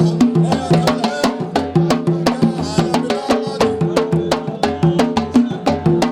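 Instrumental music with fast, steady drum and percussion strikes under a repeating line of short pitched melody notes.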